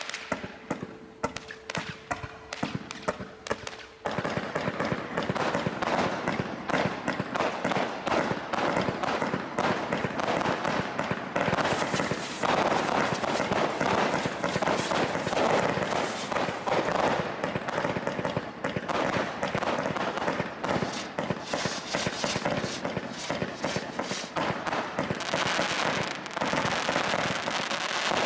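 200-shot firework barrage cake firing: a few separate shots and bursts at first, then from about four seconds in a fast, unbroken run of launches and exploding bursts.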